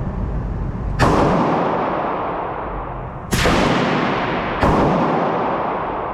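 Three gunshots at a shooting range, about a second in, past the three-second mark and just over a second after that, each sharp crack followed by a long echoing decay.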